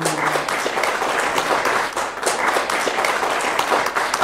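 Audience applause: many people clapping.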